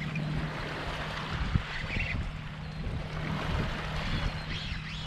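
Wind on the microphone and water lapping against a fishing kayak's hull, under a steady low hum. A single sharp knock comes about one and a half seconds in.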